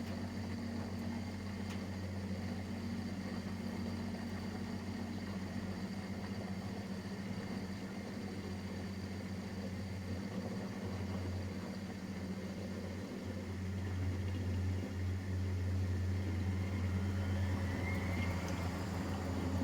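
Miele Professional WS5436 washing machine running mid-cycle: a steady motor hum, a little louder about two-thirds of the way in, with a whine rising in pitch near the end as the motor speeds up.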